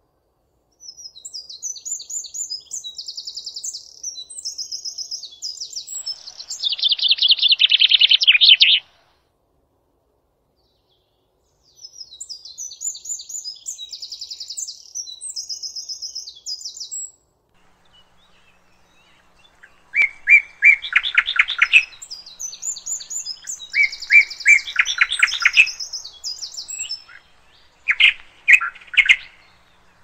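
Songbirds singing in phrases of rapid, high-pitched trills and warbles, with pauses of a few seconds between phrases. The loudest parts are a fast trill ending the first phrase and a run of lower, rattling trills in the last third.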